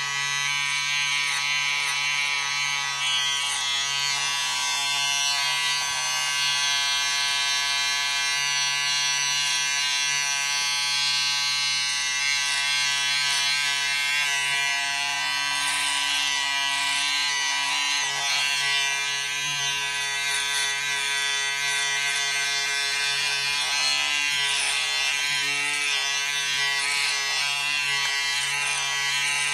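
Electric razor running steadily with an even, unbroken buzz.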